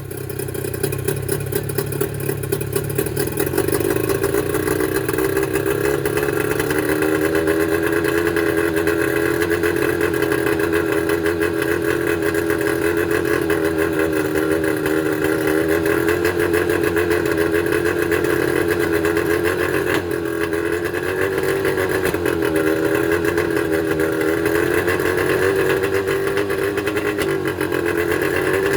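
Mercury 25 hp two-stroke outboard motor starting up and running at idle, its speed wavering up and down: a rough, uneven idle.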